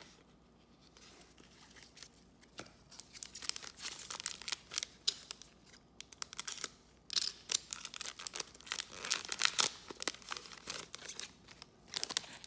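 Foil wrapper of a trading-card pack crinkling and crackling as it is cut and torn open, loudest about halfway through and again near the end.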